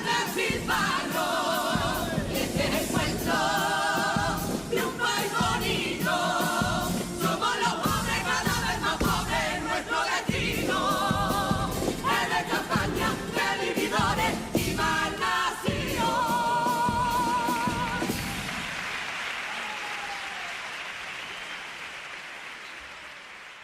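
Carnival comparsa choir singing the final lines of a pasodoble in several voices, with guitar accompaniment and sharp percussion strokes, ending about 18 seconds in. The audience then applauds, the applause fading away.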